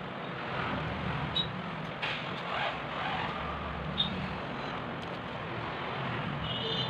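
A few small clicks and rustles of a phone's internal parts and a screwdriver being handled on bubble wrap, two sharp ticks standing out, over a steady background noise.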